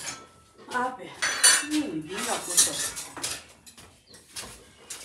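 Stainless steel kitchen utensils clattering and clinking as they are handled on a shelf, with a ringing clink about a second in and a busier run of clatter in the middle.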